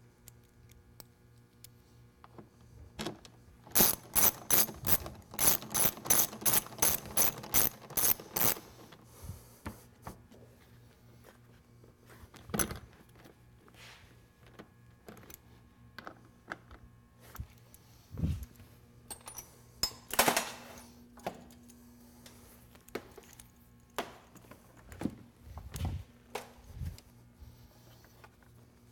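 Hand socket ratchet clicking in a quick even run of about a dozen strokes as headlight mounting bolts are driven, followed by scattered metallic clicks and knocks of tools being handled.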